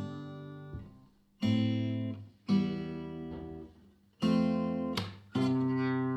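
Acoustic guitar playing an introduction in single strummed chords, each struck once and left to ring out. Four chords sound, with short pauses between them.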